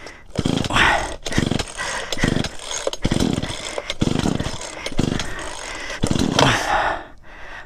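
Two-stroke Poulan chainsaw's pull-cord recoil starter yanked over and over, about once a second, the engine turning over each time without catching. It will not start even with a full tank, the choke on and the switch on run.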